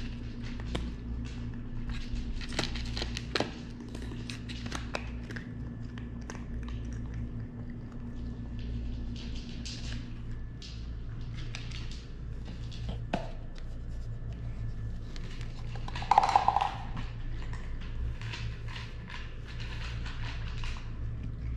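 A cat eating from a plastic bowl on a tile floor: scattered small clicks and ticks of chewing and of the bowl being nudged, over a steady low hum. About three quarters of the way through, one brief, louder, higher sound stands out.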